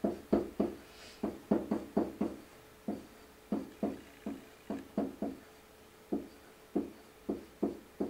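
Dry-erase marker squeaking and tapping against a whiteboard in short strokes as words are handwritten, about two to three strokes a second.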